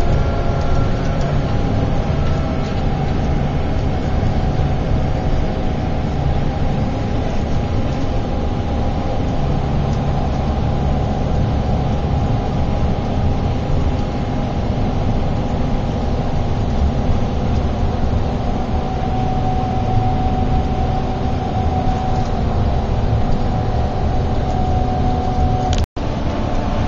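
Steady engine drone and road noise inside a long-distance bus on the move, heaviest in the low end, with a faint engine tone that rises a little about two-thirds of the way through. Near the end the sound drops out completely for a split second, then resumes.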